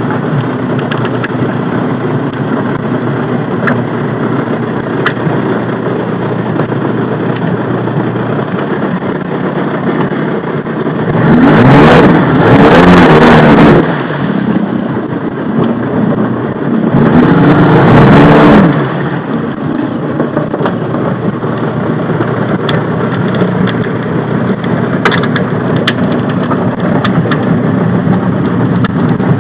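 Jet ski engine running steadily, with two louder throttle surges of a few seconds each about midway.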